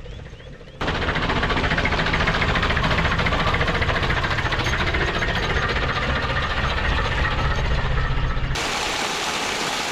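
Truck driving up a steep mountain road: engine running with rumble and rattle, heard from inside the vehicle. It starts abruptly about a second in and changes suddenly near the end.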